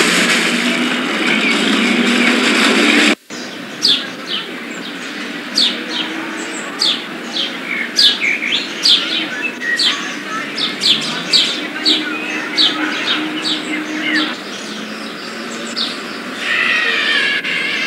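Water splashing from a swimmer in a pool, cut off suddenly about three seconds in. Then birds chirping: many short, high chirps in irregular runs, with a lower warbling call near the end.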